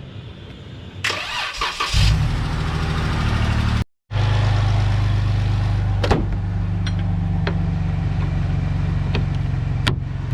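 Car engine cranking on the starter for about a second, then catching and settling into a steady idle, started from a portable battery jump pack on a flat battery.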